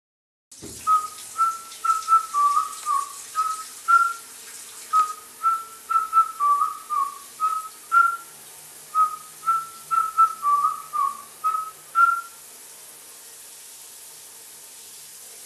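A short whistled tune, the same phrase three times over, above the steady hiss of a running shower.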